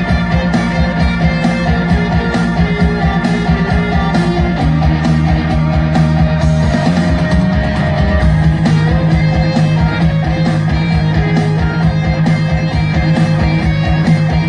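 Loud rock music with guitar and drums: held chords over a steady beat.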